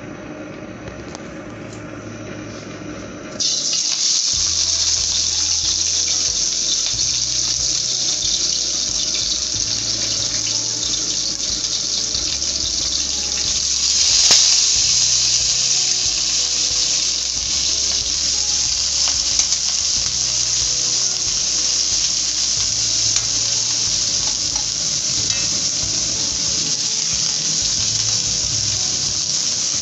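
Whole shrimp sizzling in hot oil in a steel wok: a steady hiss that starts suddenly a few seconds in as they go into the pan, swelling briefly near the middle.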